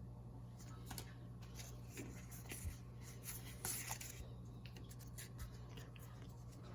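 Faint rustling, sliding and light ticks of a Pokémon trading-card booster pack and its cards being handled, with a slightly louder rustle about halfway through.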